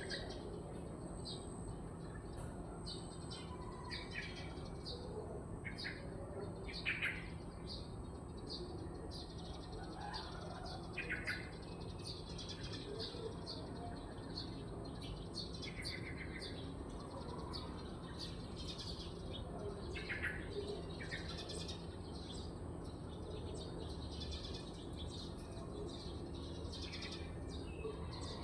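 Birds chirping, with many short high calls scattered throughout and a few louder ones among them, over a steady low background hum.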